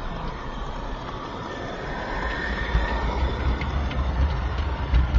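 Garden-scale model train running along its track, heard from a camera riding on one of its wagons: a steady rolling rumble with a few faint clicks, growing louder about halfway through.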